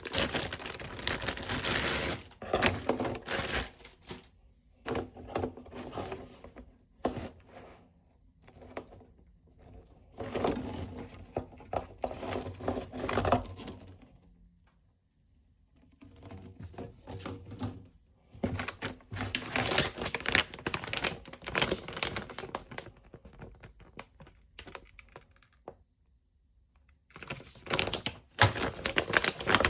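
Clicking and rustling handling noise in bursts of a few seconds, with short quiet gaps between them.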